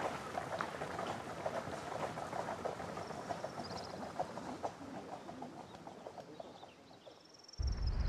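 Horse-drawn carriage moving off on a gravel road: irregular hoof clops and wheels crunching on gravel, fading as it goes away, with faint birdsong. A deep rumble starts suddenly near the end.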